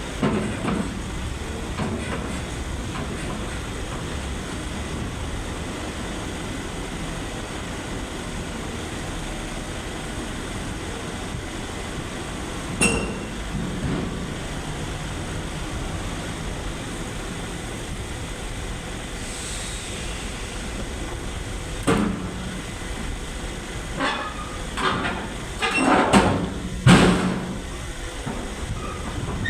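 Excavator working: a steady engine rumble with sharp knocks and clanks, one about 13 seconds in, another about 22 seconds in, and a cluster of louder ones near the end.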